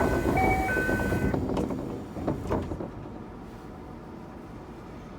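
Toei 5300-series train's door chime: a two-note chime sounding twice and ending a little over a second in, over a hiss from the door gear. A couple of knocks follow about two seconds in as the doors shut, and then the car hums steadily at a standstill.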